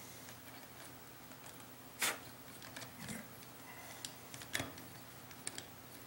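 Faint clicks and taps from a LIDO 2 hand coffee grinder's metal parts and tool as its screws are worked in during reassembly. There are a few scattered clicks, the loudest about two seconds in and another about four and a half seconds in.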